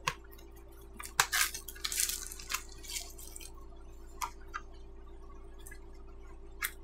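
A small cardboard box being handled and opened by hand: a quick run of clicks, taps and scraping as it is turned over and its flap worked loose, then a few single taps. A steady low hum lies underneath.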